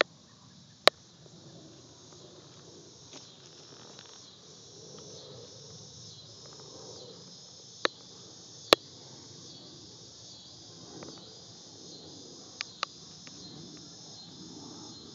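Insects trilling in a steady, high, pulsing chorus. Five sharp clicks cut through it: one about a second in, two close together in the middle, and two near the end.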